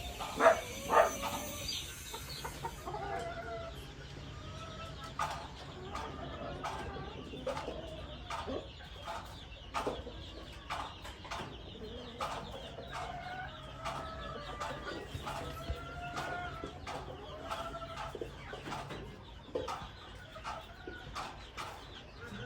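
Flock of gamefowl chickens clucking and calling, with short calls repeating throughout. Two louder calls come about half a second and a second in.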